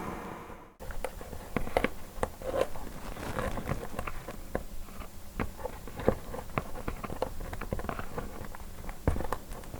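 Irregular small clicks, taps and scrapes of hand tools and fingers working on the open, glue-sealed casing of a Microsoft Surface Book laptop.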